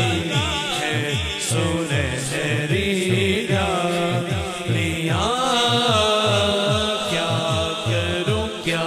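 A man sings a naat in long, ornamented melismatic phrases close to a microphone. Beneath the voice runs a steady low rhythmic pulse, about three beats a second.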